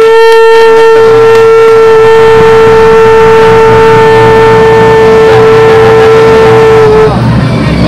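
Conch shell blown in one long, steady note, held for about eight seconds, sagging slightly in pitch as it stops near the end.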